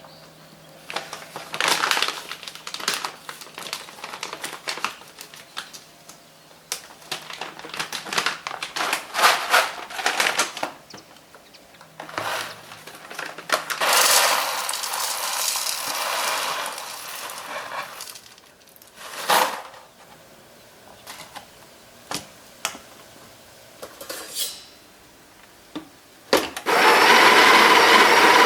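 Kitchen preparation sounds: a run of knocks, clicks and scrapes of utensils and dishes. Near the end a small electric kitchen appliance motor starts and runs steadily and loudly.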